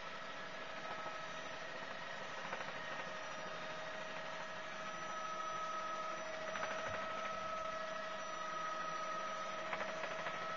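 Helicopter in flight heard from inside the cabin: a steady drone and hiss with a steady high whine over it.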